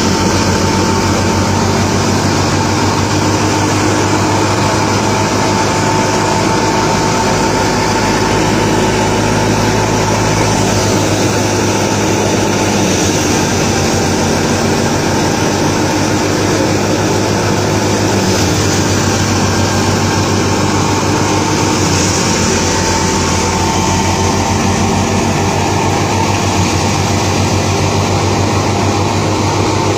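Wheat thresher machine running steadily: a loud, unbroken mechanical drone with a steady hum and whine.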